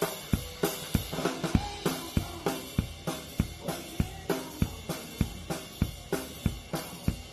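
Drum kit playing a steady beat of snare and bass drum under hi-hat and cymbals, at about three to four strokes a second.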